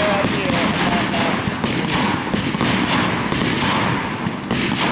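Fireworks display: aerial shells bursting in a dense, rapid run of bangs and crackles, several each second.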